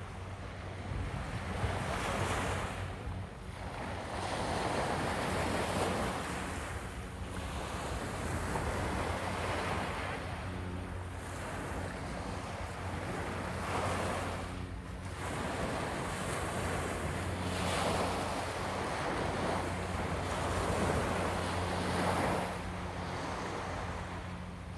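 Small waves washing onto a sandy beach, each surge of surf swelling and then receding every few seconds, with wind rumbling on the microphone.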